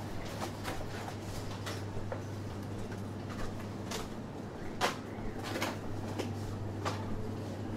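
Footsteps on a shop floor, a scatter of irregular taps and clicks, over a steady low hum of shop room tone.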